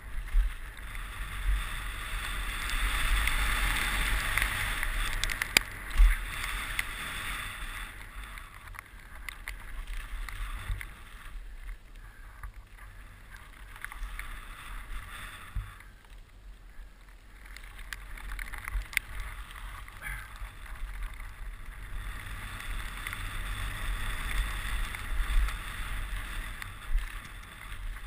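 Mountain bike ridden fast down a dirt trail, heard from a helmet-mounted GoPro: rushing wind over the camera and tyres rolling on loose dirt, with sharp knocks from bumps. The rush is loudest in the first few seconds and again near the end, easing off in the middle.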